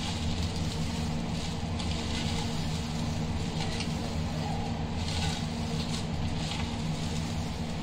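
Dry vermicelli being crushed and snapped by hand on a tray, giving faint crackling in patches. Under it runs a steady low hum, which is the loudest thing throughout.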